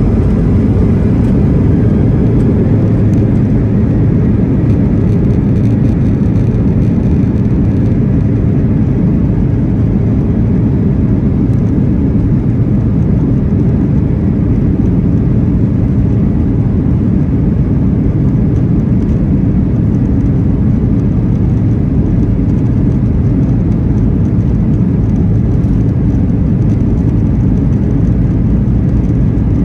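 Cabin noise inside a Boeing 737-900 taxiing, heard from a window seat over the wing: the steady low rumble of its CFM56-7B turbofans and the airframe rolling on the ground, with no spool-up or change in pitch.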